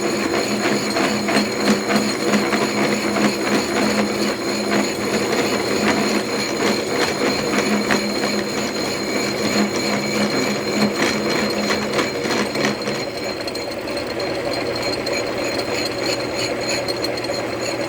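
Milling machine running with its cutter taking a cut in metal: a steady machine hum under a rough, rattling cutting noise. About thirteen seconds in, the cutting noise dies away and the spindle runs on more smoothly.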